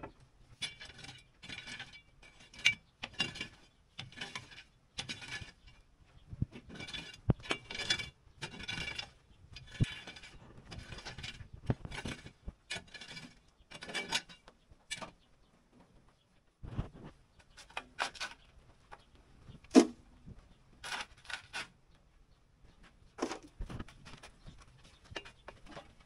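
Wooden rake scraping dirt and rubble across an earth floor in quick repeated strokes, then slower, more spaced strokes, with one sharper knock about twenty seconds in.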